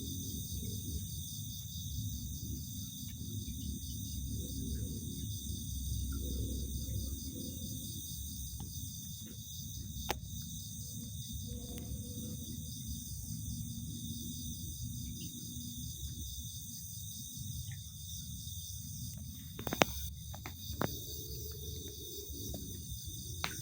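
Insects chirring in a steady, high, fast-pulsing chorus over a low rumble, with a few sharp clicks, the loudest about twenty seconds in.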